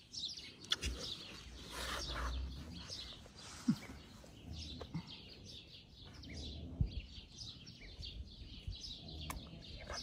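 Small birds chirping and singing over and over in the background, with a few sharp, close knocks and some low rubbing noise up close.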